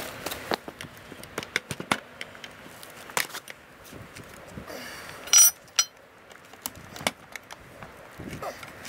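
Steel pry bar clinking and knocking against the sheet-steel body of a safe as it is worked into the top edge, with one loud ringing metal clank about five seconds in.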